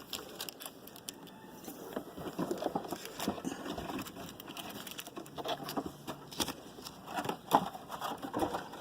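Trading cards and their pack wrappers being handled: irregular crinkling, rustling and small clicks.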